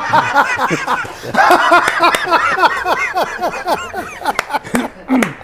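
A man laughing hard and loudly in a long run of high, falling hoots that thins out near the end.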